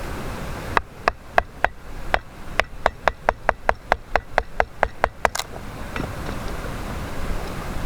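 Wood being struck: a run of about eighteen sharp, dry knocks that quicken to roughly four a second and stop suddenly, with a stream rushing before and after.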